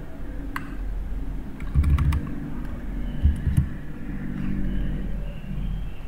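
Computer keyboard keystrokes and mouse clicks: a few scattered clicks, some with a dull thud, over a steady low hum.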